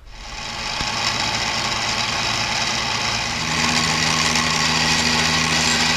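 Benchtop mini mill running steadily, its dovetail cutter milling the root of a quick-change tool holder's dovetail to open it up a few thousandths for the tool post. A lower steady hum joins about three and a half seconds in.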